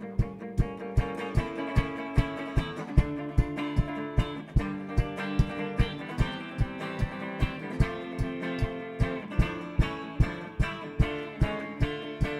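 Semi-hollow electric guitar playing an instrumental passage, picked and strummed with sharp accents in a steady beat of about three a second.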